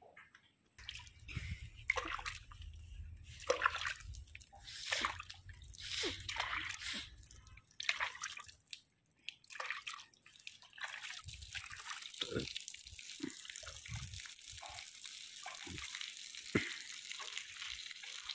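Milk squirting in spurts into a plastic bucket as a desi cow is milked by hand.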